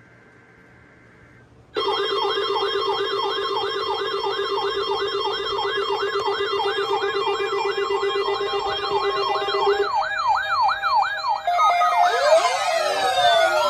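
Several emergency alert radios sounding their alarms at once for a Required Weekly Test: overlapping warbling siren tones, about three sweeps a second, over steady beeping tones, starting abruptly about two seconds in. Near the end one steady tone drops out and a tangle of faster sweeping tones joins in.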